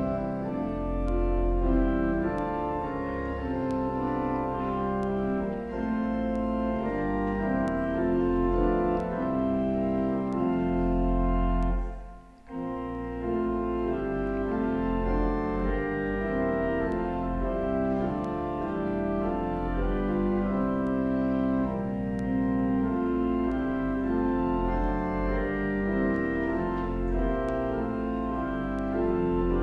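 Organ music: slow, held chords played between the readings of the Mass, with a short break between phrases about twelve seconds in.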